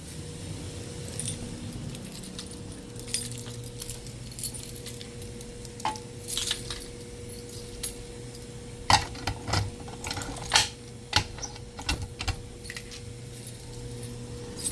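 A bunch of keys jangling and clinking in scattered bursts, loudest about nine to eleven seconds in, over a faint steady tone.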